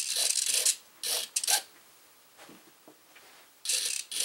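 The elevator servo of an E-flite UMX PT-17 ultra-micro biplane buzzing in short bursts as the elevator is driven up and down from the transmitter. There are three quick bursts, a pause of about two seconds, then another burst near the end.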